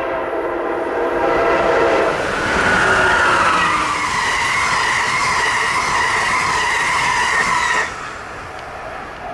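Amtrak Northeast Regional train sounding a long horn blast as it passes at speed; the horn's chord drops in pitch as the train goes by and cuts off about eight seconds in, over the rumble of the train.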